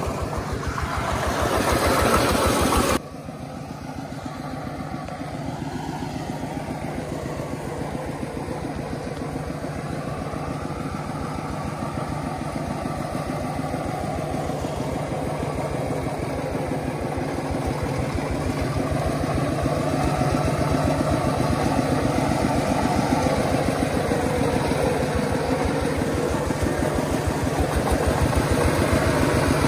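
The engine fitted to a converted Iseki tractor runs steadily as the vehicle drives along, an even rapid chug. It is louder and noisier for the first three seconds, drops suddenly, then builds slowly louder toward the end.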